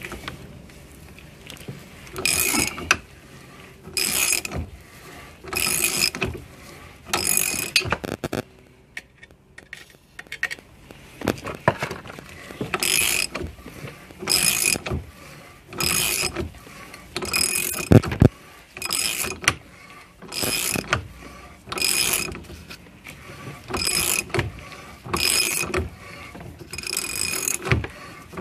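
Socket ratchet clicking in short bursts, one about every second and a half, as the handle swings back between strokes while driving a 1/4 NPT tap into a Honda H22 thermostat housing. The clicking pauses for about two seconds roughly a third of the way in.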